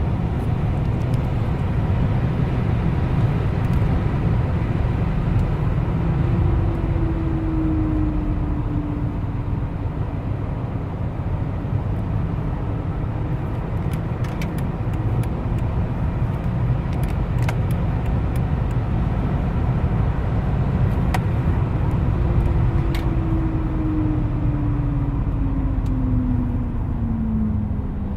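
Mercedes W211 E320 CDI at high road speed, steady road and running noise, with a howl from the brakes that falls slowly in pitch as the car slows under braking. It comes twice: about six seconds in, and again from about twenty-two seconds to the end. The owner does not know its cause; the brake discs had a coating of rust after the car stood a long time.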